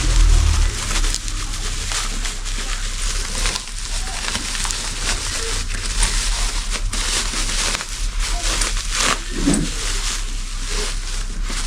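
Plastic packaging rustling and crinkling as a tyre inflation gun is unwrapped and handled, an irregular crackle throughout.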